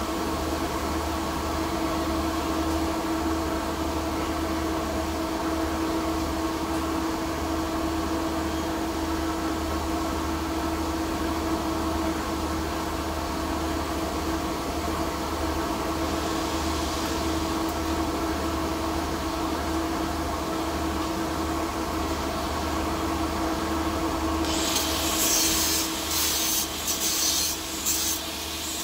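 Steady machine drone with a constant hum throughout. About 24 seconds in, a small angle grinder starts grinding the P22 chrome-moly steel pipe weld in short stop-start passes, and it is the loudest sound.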